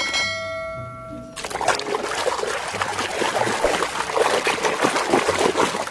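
A held musical note lasting about a second and a half and then cutting off. After it, water splashes and trickles as a muddy plastic toy vehicle is scrubbed and rinsed by hand in a container of water.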